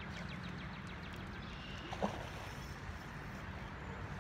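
Steady rush of river water with wind buffeting the microphone, a run of faint quick ticks in the first second, and one short knock about two seconds in.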